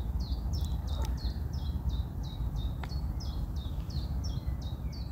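A small bird calling over and over, about three short falling chirps a second, over a steady low rumble.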